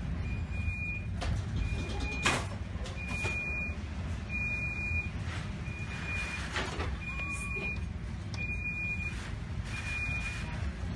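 An electronic alarm on a ship's bridge beeps a single high tone about once a second over a steady low rumble of storm noise, with a couple of brief knocks.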